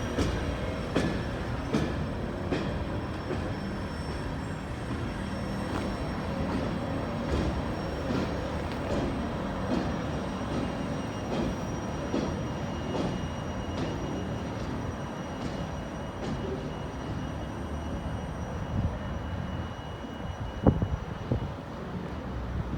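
Long freight train of empty aluminum-sided gondola cars rolling past with a steady rumble and repeated clacks of wheels over rail joints, under a faint high wheel squeal. A couple of sharper knocks come near the end.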